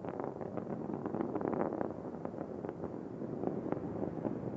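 Space Shuttle Discovery's rocket motors during ascent, heard from the ground as a distant steady rumble with frequent sharp crackling pops.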